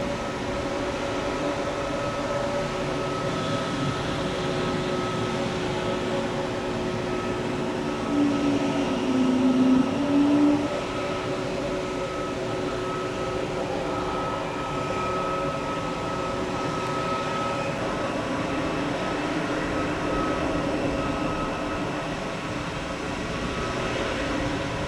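Airbus A320neo's Pratt & Whitney PW1100G geared turbofan engines running steadily at ground idle: a constant whine of several steady tones over a broad rushing drone. About eight to ten seconds in, a louder low drone briefly swells over it.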